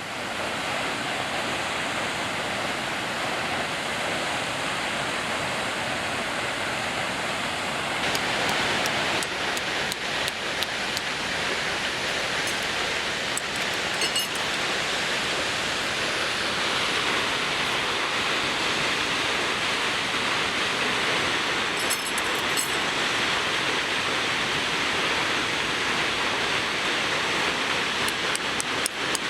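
Steady rushing of a waterfall, turning a little brighter about eight seconds in, with a few faint ticks.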